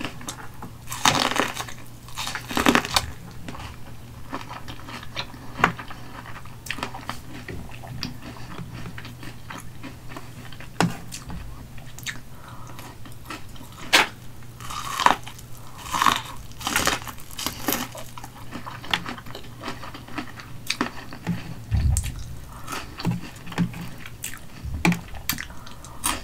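Close-miked biting and chewing of corn on the cob coated in mayonnaise and crushed hot Cheetos: irregular crunches of the kernels and crisp coating.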